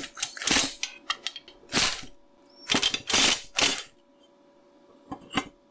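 Steel finger-brake die parts being handled, turned over and set down on a steel welding table: a series of irregular metal clanks and scrapes, about six of them.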